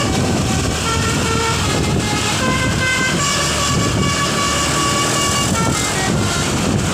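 Bus 'telolet basuri' musical horn playing a melody of short stepped notes, with one long held note in the middle, over steady low vehicle noise.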